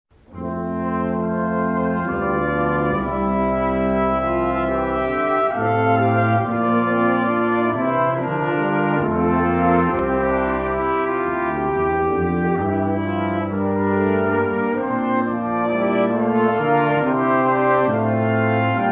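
Brass quintet of two trumpets, horn, trombone and tuba playing a chordal arrangement of a Renaissance madrigal, held notes moving together from chord to chord every second or so.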